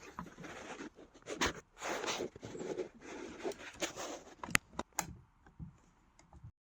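Handling noises: rustling and scraping with a few sharp clicks about four and a half and five seconds in, then fainter ticks.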